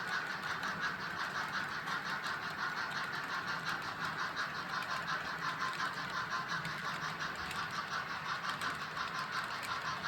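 Trains running on track: a steady, fast rhythmic clatter of wheels over the rails, with a constant buzzing tone underneath.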